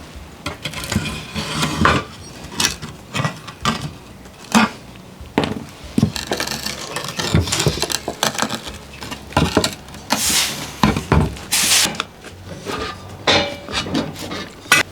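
Irregular clinks, clanks and knocks of tools and metal parts being handled, with two short bursts of hiss about two-thirds of the way in.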